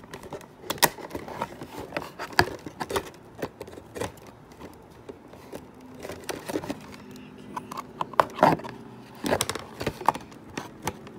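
Hands working a plastic T-Rex toy figure loose inside its cardboard window box: irregular taps, clicks and rustling of cardboard and plastic packaging, with a louder cluster of knocks about eight to ten seconds in.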